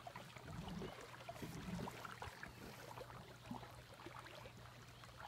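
Faint water lapping and splashing against the hull of a small boat on a calm lake, with a low steady hum underneath.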